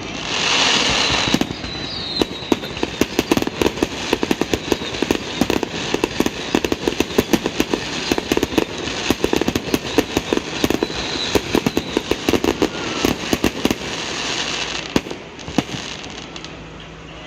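Fireworks display: a hissing burst, then dense rapid crackling and popping of many bursts going off together. It thins out near the end to a few single bangs.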